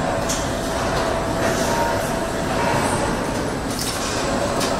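Car assembly-line machinery running: a steady mechanical rumble and hum, with a few short, high hisses scattered through it.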